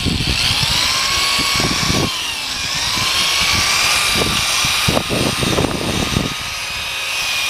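Electric drill spinning an 800-grit sanding disc against a plastic headlight lens during headlight restoration: a steady motor whine whose pitch dips and rises as the speed changes, over the hiss of the sandpaper.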